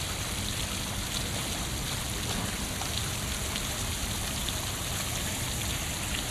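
Steady, even rushing noise with a few faint ticks.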